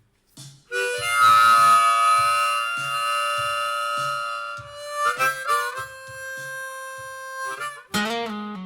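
Harmonica playing long held notes with short bends over a steady low beat about twice a second, as the instrumental intro of a song; a guitar chord comes in near the end.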